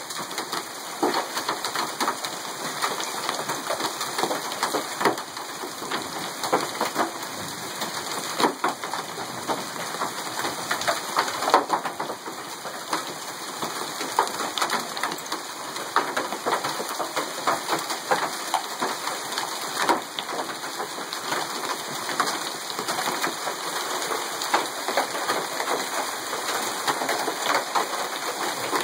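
Hail and heavy rain pelting a car, with hailstones striking the hood and windshield in many irregular sharp knocks over a steady hiss of rain.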